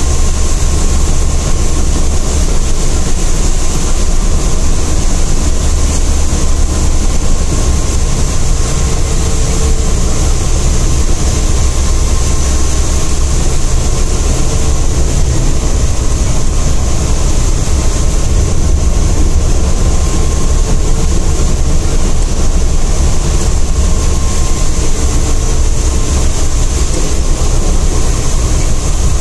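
Bus running along a wet road, heard from inside the cabin at the front: a loud, steady low engine and road rumble with a hiss of tyres and rain high above it.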